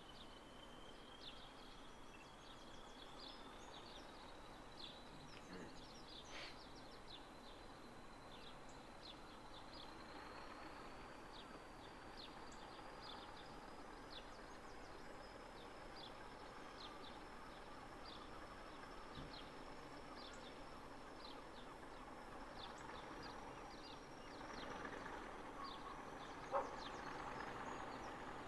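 Distant Class 40 diesel locomotive (English Electric 16-cylinder engine) pulling away, its turbocharger whistle a thin tone rising slowly in pitch, with the engine's running noise growing louder near the end. Birds chirp throughout, and there is a single sharp knock a couple of seconds before the end.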